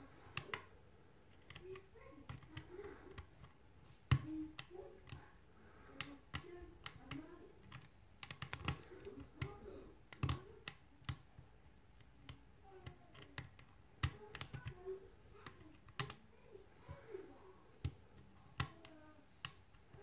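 Hook pick and tension wrench single-pin picking a brass mortise cylinder: irregular sharp metallic clicks and taps as the pick lifts the pins and they set under tension.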